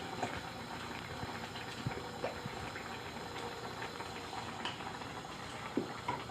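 Pot of chicken and sweetcorn soup simmering, a steady soft bubbling hiss with scattered small pops.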